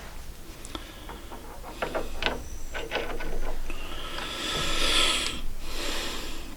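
Objects being handled on a workbench: a run of sharp clicks and knocks, then a scraping rub about four seconds in.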